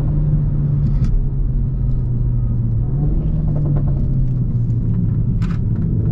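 Renault Mégane 4 RS 280's 1.8-litre turbocharged four-cylinder with a catless exhaust, droning steadily at near-constant revs while driving. A brief sharp click comes about a second in and another near the end.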